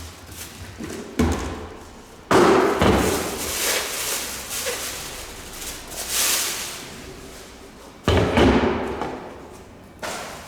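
Handling of the fireworks igniter and its packaging: three sharp thumps as parts are knocked and set down, each followed by rustling that fades away.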